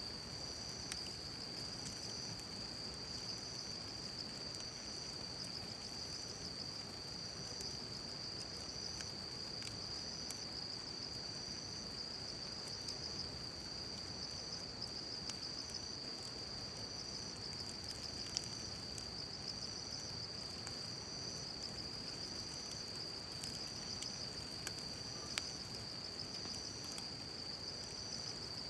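Insects chirping steadily in a high continuous trill, with a second insect call pulsing about once a second above it. A few sharp pops are scattered through, the loudest about two-thirds of the way in.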